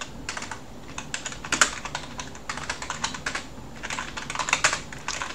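Typing on a computer keyboard: runs of quick keystrokes broken by short pauses.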